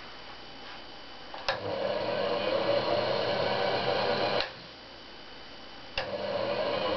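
Homemade electric cone yarn winder switched on with a click about a second and a half in; its motor runs with a steady whir, turning the spiral-grooved traverse drum. It is switched off shortly after the middle and clicked back on near the end.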